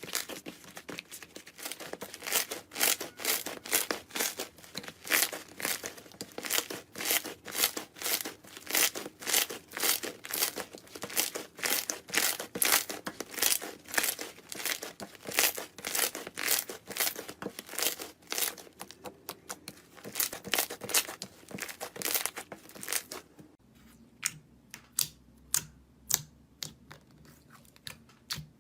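Crunchy slime being pressed and squished, crackling and popping a few times a second. About 23 seconds in it changes to sparser, sharper clicks over a faint low hum.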